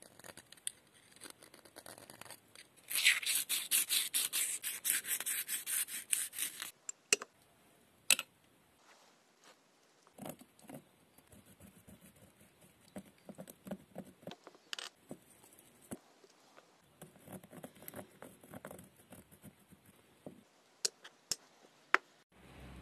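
A small file rasping against the edge of a small steel ring, with a fast run of strokes from about three to seven seconds in, then lighter, intermittent scraping. Near the end come a few sharp clicks of small metal rings set down on a glass plate.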